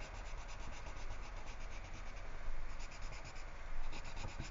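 Orange colored pencil colouring in on a paper worksheet: its tip scratching back and forth in quick, steady strokes.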